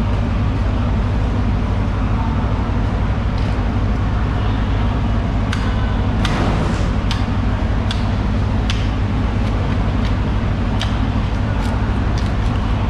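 A steady low motor drone, with sharp clicks and knocks scattered through the second half.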